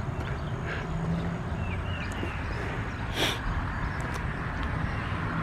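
Steady low background rumble of outdoor ambience, with one brief sharp rustle or click about three seconds in.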